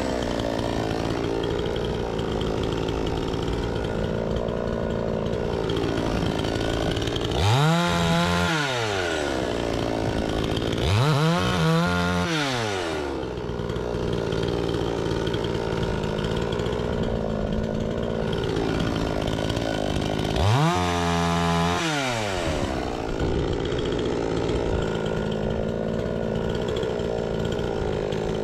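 Two-stroke petrol chainsaw cutting through fruitwood logs with a freshly sharpened chain, the engine held steady under load. A few times, about 8, 12 and 21 seconds in, the engine revs up high and falls back as the chain comes free of the cut.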